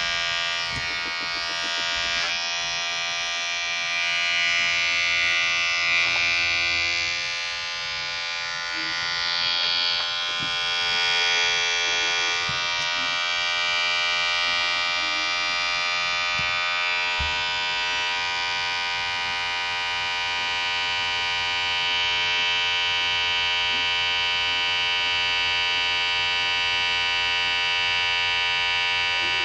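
Electric hair clipper running with a steady buzz. Its tone shifts a little in the first dozen seconds, then holds even.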